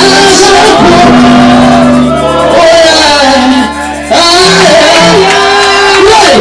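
Women's gospel vocal group singing a praise song through microphones, a lead voice sliding up and down in pitch over steady held backing notes. The sound dips briefly a little before the four-second mark.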